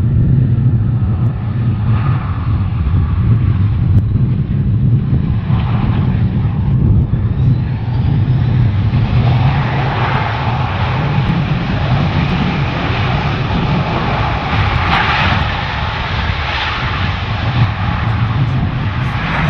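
Boeing 757 jet engines running, a steady low rumble with a brighter rushing noise that swells from about nine seconds in.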